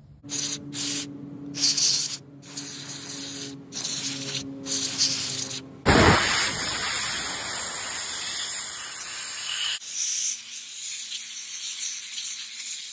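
Aerosol contact cleaner spraying onto a cordless reciprocating saw's exposed motor and switch, hissing in a string of short sprays, then one long spray of about four seconds, then a softer hiss.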